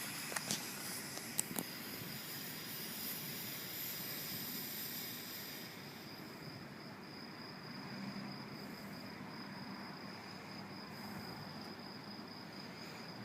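A few short clicks near the start, then a lit smoke bomb fizzing with a steady high hiss that fades about halfway through, over the steady high trill of crickets.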